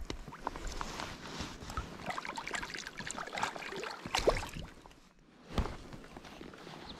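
Water sloshing and splashing in a river: irregular small splashes and trickling, with a dull thump about five and a half seconds in.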